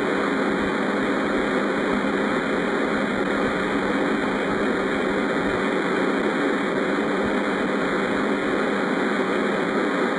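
Steady, unchanging droning rumble-hiss of a 'space sounds' ambient track, an electronic drone with no events or changes.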